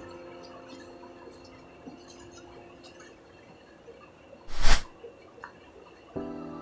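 Background music dying away to a quiet stretch with a few faint clinks, broken about four and a half seconds in by one short, loud noise burst like a knock or bump; the music starts again near the end.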